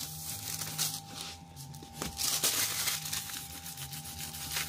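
Paper release backing from self-adhesive vinyl floor tiles rustling and crinkling as it is handled and crumpled, in irregular crackly bursts.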